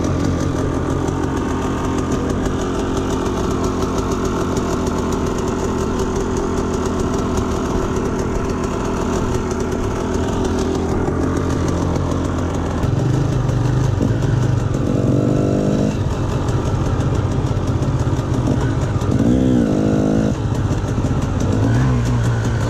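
KTM enduro dirt bike engine running under way through snow, steady at first. About halfway it picks up throttle and gets louder, with a couple of quick revs rising and falling in pitch after that.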